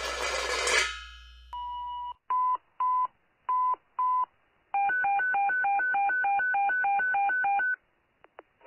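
Telephone keypad dialing tones: a short steady tone and four short beeps, then a quick run of about a dozen two-pitch dialing tones at roughly four a second, thin as if heard over a phone line. The tail of a louder noisy sound fades out in the first second.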